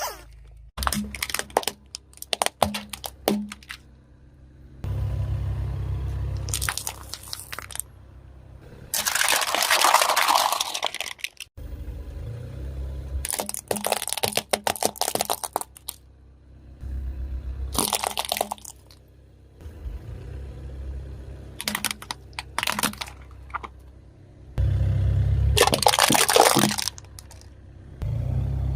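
A car's tyres rolling over and crushing crunchy objects: repeated cracks and crunches, with stretches of low rumbling in between.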